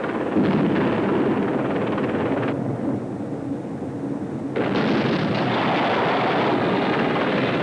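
Sea King HAR3 search-and-rescue helicopter in the hover: heavy, steady rotor and twin-turbine noise. For about two seconds in the middle it changes to a duller, lower rumble, then the full noise returns.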